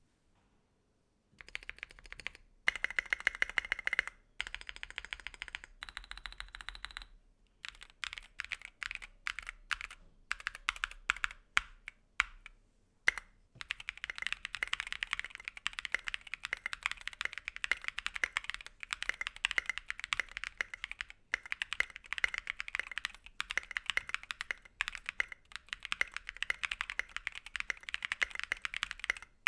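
Typing on a mechanical keyboard fitted with stock, unlubricated Durock POM linear switches: after a moment of quiet, short runs of keystrokes, then steady fast typing from about halfway through.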